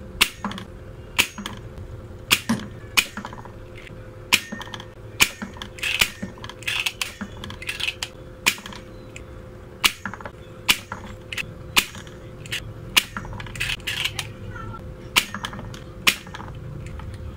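Irregular sharp clicks and taps of metal tools against a circuit board, roughly one a second, while 4-pin tactile switches are being desoldered, with a few short hissing scrapes in between.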